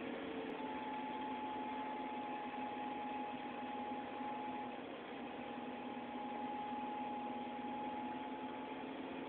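Toyota Noah's engine idling steadily after a start, with a thin steady whine over the engine hum.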